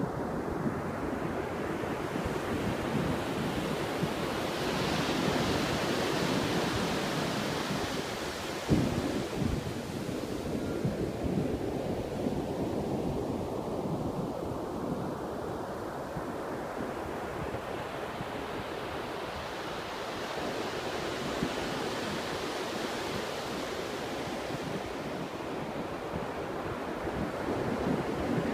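Ocean surf breaking on a sandy beach, the wash swelling and ebbing in two long surges, with a single thump about nine seconds in.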